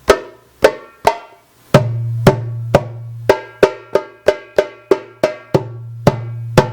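A 3D-printed PET-g doumbek with a 9-inch Remo Cleartone head, played in a quick rhythm of sharp, ringing strikes. From about two seconds in, a steady low hum runs underneath.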